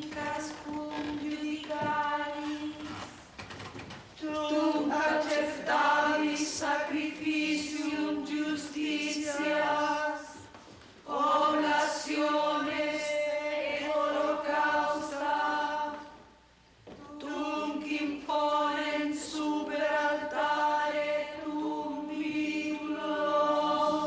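A choir of nuns chanting a Latin psalm in unison, mostly on one held reciting note, in long phrases with three short breaths between them.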